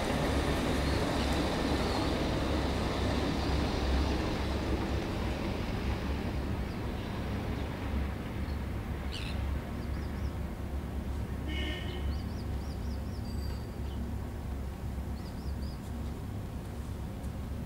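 Outdoor harbour ambience: a steady low rumble with a wash of noise that fades over the first several seconds. Small birds chirp and call a few times in the second half.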